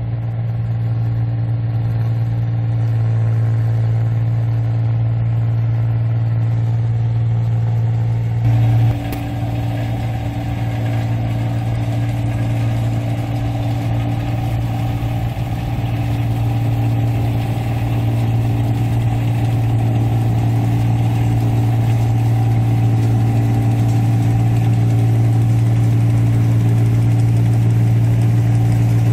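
Diesel engine of a 1545 S tracked rice combine harvester running steadily under load as it harvests paddy, a constant low engine hum. About eight seconds in, the sound briefly jumps and then carries more hiss from the working machine.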